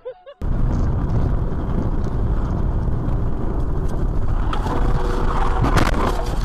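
Steady road, wind and engine noise from a car at highway speed, then about five to six seconds in a short cluster of bangs and clatter as it collides with an SUV turning across its lane.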